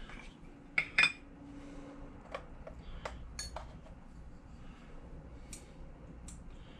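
A small metal measuring spoon clinking against a cinnamon jar as ground cinnamon is dug out. There are two sharp clinks about a second in, then scattered lighter taps and clicks.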